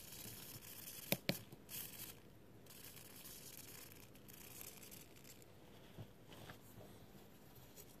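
Hitec HS125MG metal-gear wing servo running briefly under a servo tester, its small motor and gears whirring faintly as the horn moves, with two sharp clicks about a second in. The servo responds to the tester after its cable replacement.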